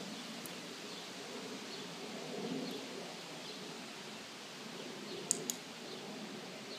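Steady outdoor background hiss with faint, repeated bird chirps, and two sharp clicks in quick succession about five seconds in.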